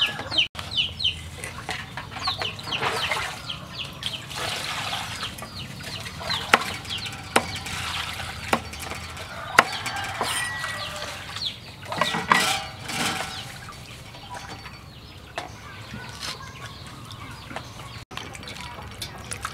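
Cleaver chopping herbs on a wooden chopping block, single sharp knocks about a second apart, with birds calling in the background and water splashing as a raw chicken is washed in a metal bowl.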